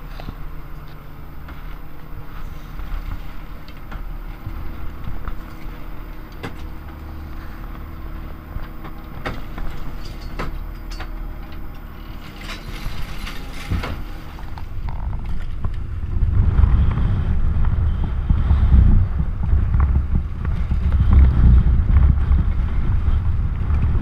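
Fishing boat's engine running steadily, with scattered knocks and clicks. About two-thirds of the way in, a much louder low rumble sets in.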